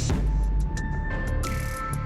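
Background electronic music with a steady beat, heavy bass and held synth notes.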